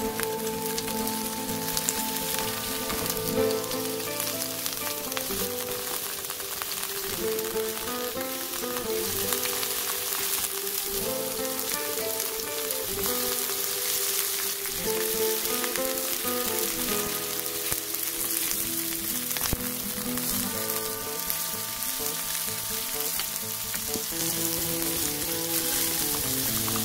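Fish cake strips and asparagus sizzling in a hot frying pan, first browning in oil and later in teriyaki sauce. Light background music plays over the sizzle.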